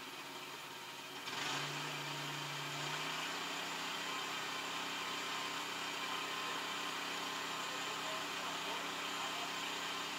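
Yanmar YT333 tractor's diesel engine idling steadily, heard from inside its cab. It gets suddenly louder about a second in and then runs on evenly.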